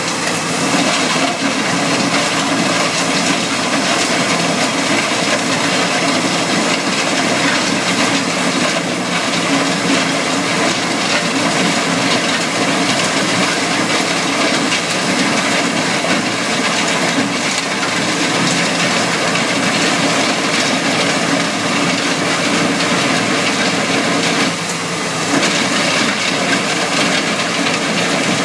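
Takeuchi TL12R2 compact track loader running a Simex PL 450 planer that is cutting into the ground, with an industrial vacuum sucking up the cuttings. It makes a loud, steady grinding rush that dips briefly about 25 seconds in.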